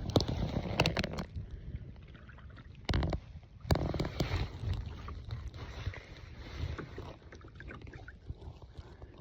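Paddling a fishing kayak: paddle strokes in the water with a few sharp knocks and a thump about three seconds in, over wind rumble on the microphone.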